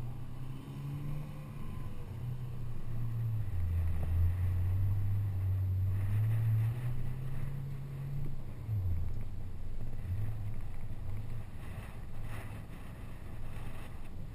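2013 Toyota Tacoma pickup's engine running at low revs while the truck drives slowly over a dirt trail, its pitch dropping and rising again with the throttle. Some wind noise on the microphone.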